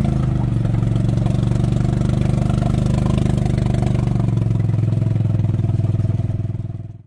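Small gas engine of a Club Car utility vehicle running steadily, its pitch dropping a little about four seconds in. The sound fades out near the end.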